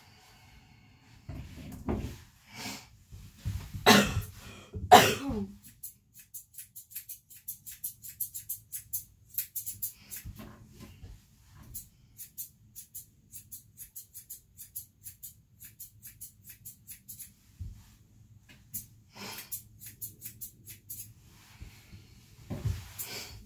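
Two loud, sudden bursts about four and five seconds in, then a long run of quick, light snips, a few a second: grooming scissors trimming an Airedale terrier's coat.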